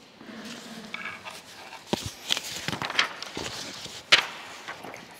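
Sheets of paper rustling and light knocks at a lectern, close to its microphone, as pages are arranged, with one sharper knock about four seconds in.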